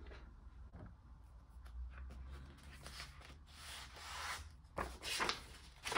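Faint rustling and rubbing of photocards and paper album inserts being handled and shuffled, with a few short swishes near the end.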